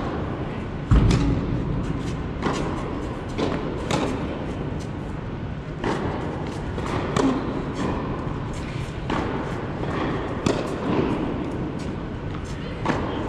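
Tennis balls being struck by rackets and bouncing on an indoor hard court during a rally, a sharp hit about every second or so. A deep thump about a second in is the loudest, most likely the near player's serve close to the microphone.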